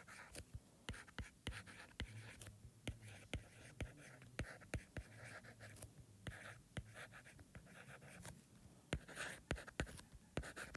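Faint handwriting: a writing tool scratching out strokes with many small irregular taps and clicks.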